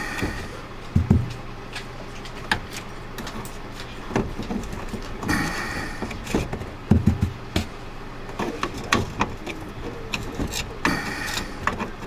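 Long metal tool poking and scraping inside a kitchen sink's drain outlet to loosen built-up waxy grease: scattered clicks and taps, two short scrapes about five and eleven seconds in, and a couple of dull thumps.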